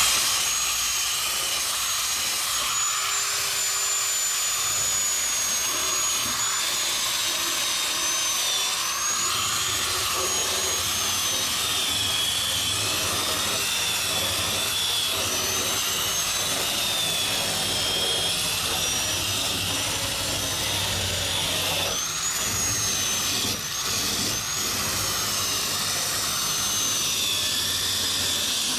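Corded handheld electric disc tool grinding old paint off an aluminum boat hull: a steady motor whine whose pitch wavers up and down as the disc is pressed onto the metal and eased off.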